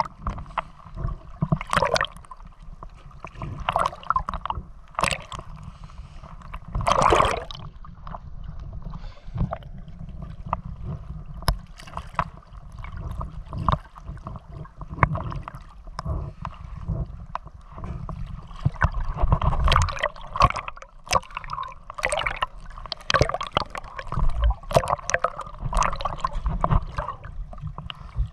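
Seawater sloshing and splashing close against a GoPro camera as a swimmer swims sidestroke, with irregular surges of splash every second or two over a steady low rumble of water.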